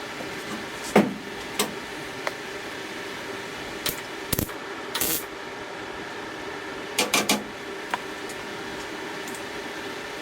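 Welder burning short tack welds into a sheet-metal wheelhouse patch: several brief bursts of crackle, with a group of three close together about seven seconds in, over a steady low hum.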